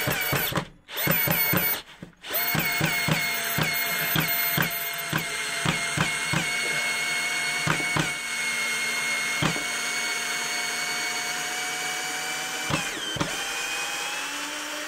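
Counterfeit Bosch GSR 18-2-LI Plus cordless drill-driver backing a long wood screw out of a timber block: the motor starts and stops twice, then runs with a steady whine. A sharp click comes about twice a second at first, then only now and then, and the pitch dips slightly at each click.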